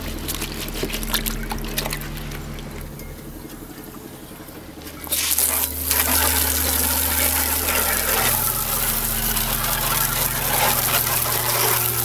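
Water trickling from a garden-hose spray nozzle into a plastic tub. About five seconds in, the spray opens up into a loud, steady hiss of water jetting onto an etched metal plate, rinsing off the acid.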